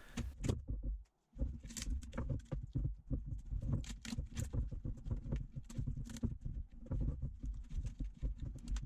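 Peel ply and plastic infusion flow mesh being peeled off a cured carbon-fibre laminate by gloved hands: continuous irregular crackling and crinkling, cutting out briefly about a second in.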